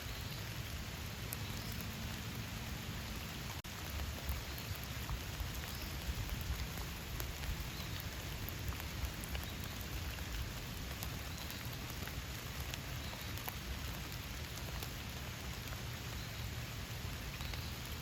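Steady rain falling in a forest, with scattered close drops ticking; the sound drops out for an instant about three and a half seconds in.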